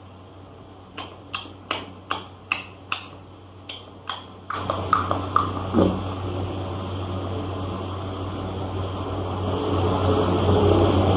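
Heard over a video call, a run of about eight sharp clicks, a few tenths of a second apart, is followed about halfway through by a man's louder, rough, wordless vocal noise that builds toward the end, with a short falling groan in it.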